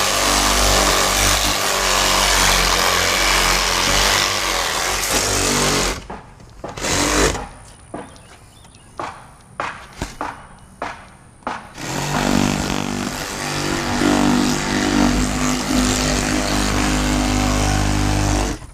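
Powered windshield cut-out tool running as it cuts through the urethane bead holding the glass. It stops about six seconds in, leaving a few seconds of scattered clicks and knocks, then runs again from about twelve seconds in.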